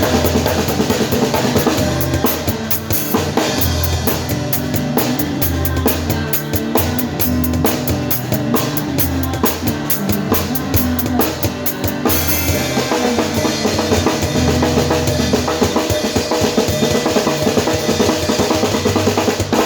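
An acoustic pop band, acoustic guitar with a drum kit, plays a steady beat of bass drum, snare and rimshots. A fast run of high ticks over the beat drops out about twelve seconds in.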